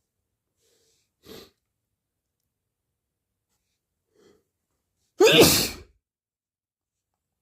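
A person with a cold sneezing once, loudly, with a voiced "achoo" that falls in pitch, about five seconds in. A short, quieter sharp noise comes about a second in.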